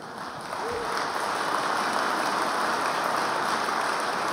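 Audience applauding, swelling over about the first second and then holding steady.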